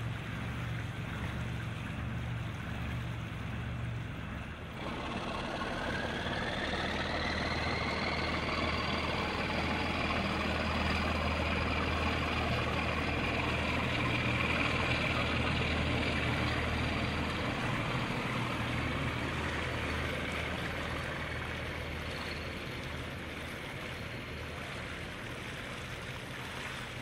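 Motor torpedo boat's engines whining up about five seconds in as it speeds past, then fading slowly as it pulls away, over a low steady engine hum and rushing water.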